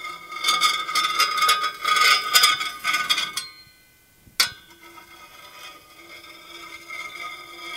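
Stainless steel spatula scraped across a cast iron griddle. It rasps loudly and roughly over the unground surface, then after a short pause and one sharp click it makes a much quieter, smoother scrape over the half that has been ground and polished smooth.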